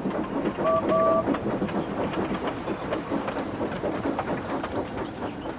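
Steam train running with a busy rattle of wheels on track, and two short whistle toots about a second in.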